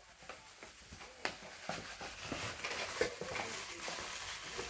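Paper gift bag and tissue paper rustling and crinkling as hands rummage inside it. The rustle builds about two seconds in, with a few sharp crackles.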